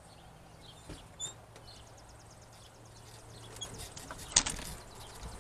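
Birds chirping faintly, with a fast run of high ticking notes in the middle, over low steady outdoor hum. A single sharp click about four seconds in.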